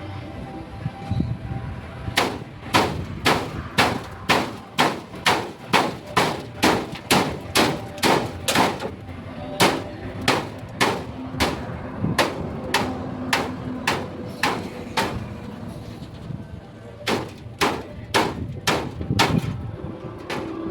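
Hammer blows on metal in a steady rhythm of about two strikes a second, then a short pause and a few more strikes near the end.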